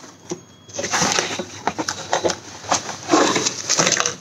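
Cardboard packaging and plastic bubble wrap rustling and crinkling with many small crackles as a bubble-wrapped item is pulled out of its box.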